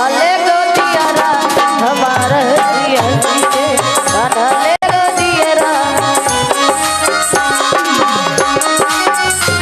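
Live devotional bhajan: a woman singing with tabla accompaniment. The sound cuts out for an instant about halfway through.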